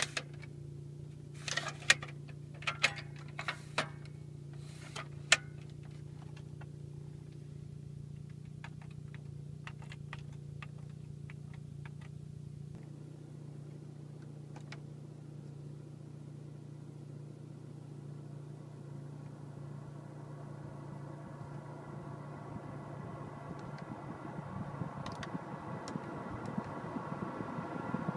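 A run of sharp plastic clicks from the Saab's dashboard fittings, the pop-out cup holder and control buttons being worked, over a steady low cabin hum. In the last several seconds the automatic climate control's blower fan comes up as its buttons are pressed, a rising rush of air.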